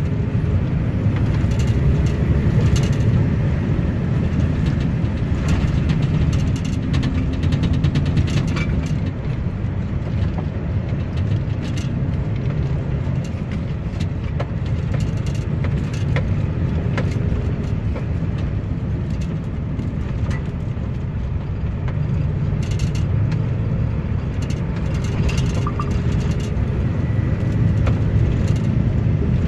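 Lorry driving at a steady pace on a rough, patched road: a low, steady drone of diesel engine and tyre noise, with frequent short rattles and knocks throughout.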